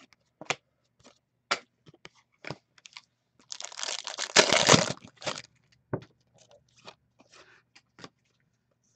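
Hockey trading cards and their plastic packaging being handled: scattered light clicks and taps, with a crinkling, tearing rush of plastic wrapper about three and a half seconds in that lasts a second and a half and is the loudest part.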